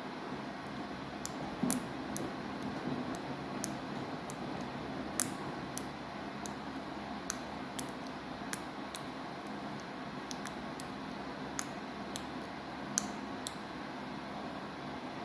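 Samsung washing machine running, a steady wash noise with irregular light clicks scattered through it.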